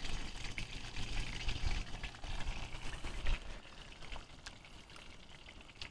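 Faint sizzling hiss from a pan on a camp stove, with a few light clicks of utensils.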